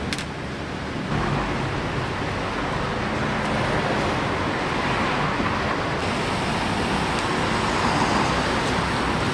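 Steady road traffic noise, a continuous rush with no voices, with a brief click right at the start.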